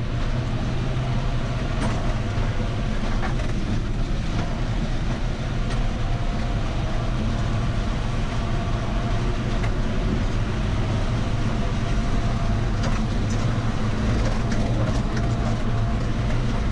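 John Deere tractor running steadily while driving over cobblestones, heard from inside the cab: a constant low engine hum with scattered knocks and rattles from the cobbles.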